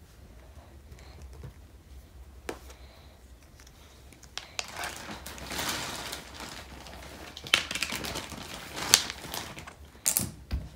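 Plastic Play-Doh tools scraping and clicking on a plastic high-chair tray as a toddler cuts dough: a crinkly rustle with a few sharp clicks, starting about four seconds in.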